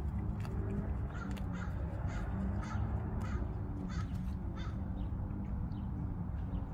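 A horse grazing close by: a series of short, crisp rips and crunches, about two a second, as she tears and chews grass, over a steady low rumble.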